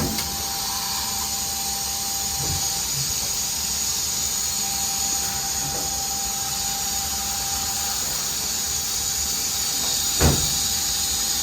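Makino SNC64-A5 graphite machining centre running: a steady hiss and hum with a faint whine that comes and goes. A few short knocks, the loudest about ten seconds in.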